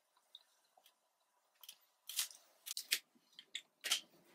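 Marker pens being handled and capped: a string of short plastic clicks and scrapes, sparse at first, with the loudest about two seconds in and near the end.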